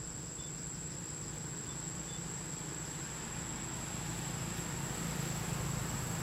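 Forest insects giving one continuous high-pitched buzzing tone, with a steady low rumble beneath it that grows slightly louder toward the end.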